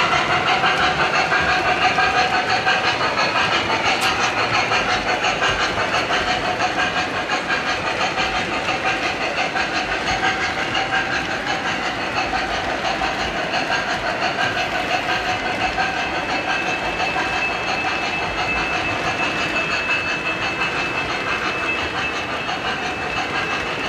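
MTH model train's freight cars rolling past on the track, a steady rumbling clatter of metal wheels over rail joints. A thin high whine joins in about two-thirds of the way through.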